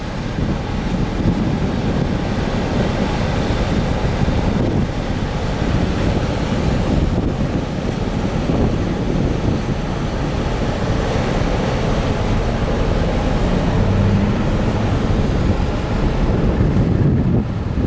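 Wind buffeting the microphone over the low rumble of the passing ferry Blue Star Naxos and the wash of water along its hull.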